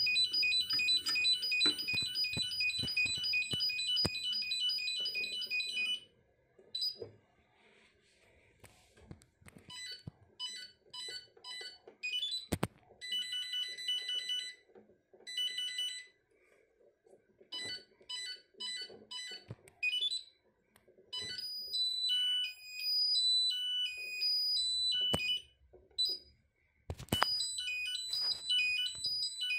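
Electronic alarm beeping from a fire-alarm stand on a Granit-24 control panel. It starts as a fast, even beep, about four a second, which stops after about six seconds. It comes back in stop-start groups, then as tones stepping between pitches, then as steady beeping again near the end, with a few sharp clicks in between.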